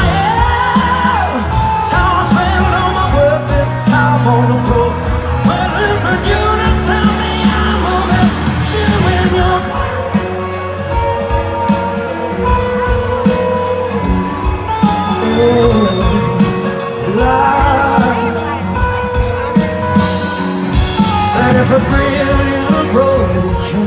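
Live rock band playing loud, with electric guitars, bass and drums. A lead line bends up and down in pitch over the band.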